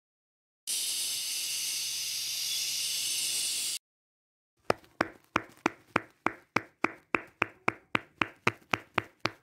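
A steady hiss for about three seconds, then after a brief silence a fast, even series of sharp knocks, about three a second.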